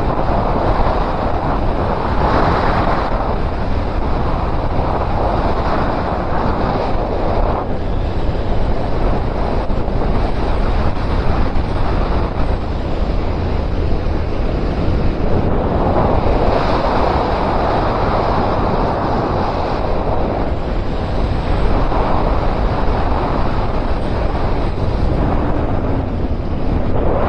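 Wind rushing over the microphone of a moving Suzuki Bandit 1250 motorcycle, a steady noise that swells and eases several times.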